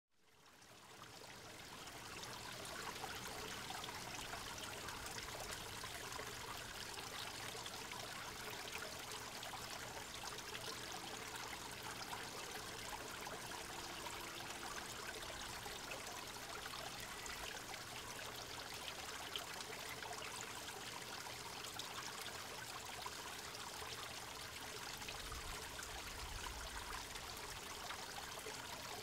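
Steady running water, fading in over the first couple of seconds.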